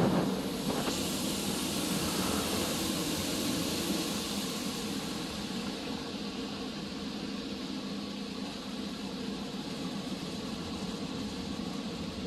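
Touchless car wash water jets spraying and drumming on the car, heard from inside the cabin as a steady rushing hiss over a low hum. A loud burst of spray hits at the start and another weaker one about a second in, then the spray eases off gradually.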